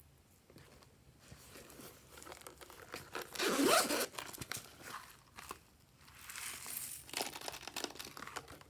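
Glossy slime being stretched and squeezed by hand, giving off runs of crackling, popping clicks. The clicking is loudest about three and a half seconds in, and comes again around seven seconds.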